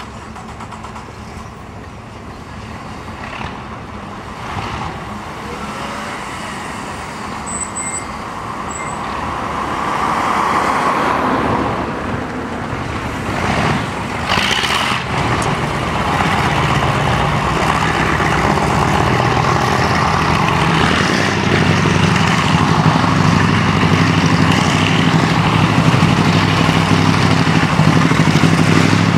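A column of military vehicles, including a tracked armoured vehicle and a camouflaged jeep, driving past on a road, their engine noise growing steadily louder as they approach. A deep, steady engine drone builds from about halfway through.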